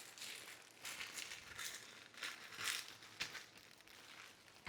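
Faint crinkling and rustling from a plastic spine cable organizer and its packaging being handled, in a string of short, soft rustles.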